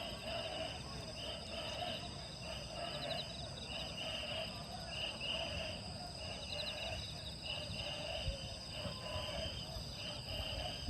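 Night insects chirping in a steady chorus, with short chirps repeating about once or twice a second over a faint low background hum.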